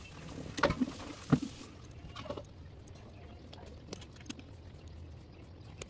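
Handling noise as a 3D-printed PLA bracket is worked onto an aluminium 2040 V-slot extrusion: two sharp knocks about half a second apart in the first second and a half, then faint clicks and rubbing.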